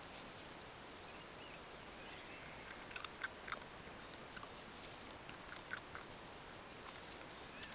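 Small dogs crunching dry kibble picked out of the grass: a few short, sharp crunches about three seconds in and again near six seconds, over a steady faint hiss.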